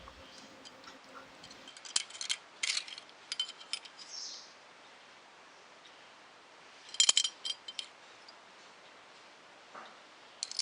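Light metallic clicks and clinks of small metal parts being handled, in a few short clusters. The loudest run of clicks comes about seven seconds in.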